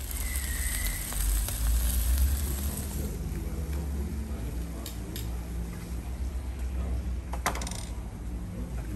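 Metal tongs clicking and scraping as pieces of sturgeon are lifted off a hot stone in a brick oven and set down on a serving plate, with a short clatter about seven and a half seconds in. A steady low rumble runs underneath.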